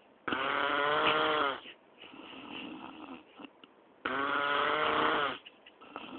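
A person snoring loudly: two long snores about four seconds apart, each lasting over a second, with a quieter breath out between them.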